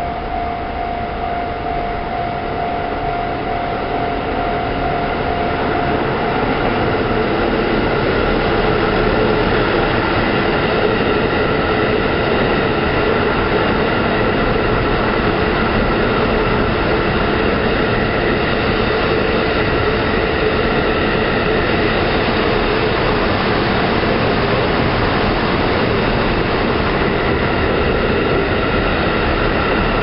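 JR Central KiYa 97 series long-rail transport diesel train passing close by, its engines and wheels on the rails growing louder over the first several seconds and then staying steady. A level-crossing alarm rings steadily throughout.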